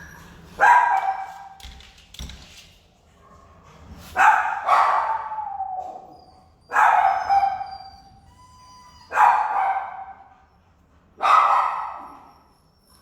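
A dog in a shelter kennel barking loudly, about six long, drawn-out barks spaced a couple of seconds apart.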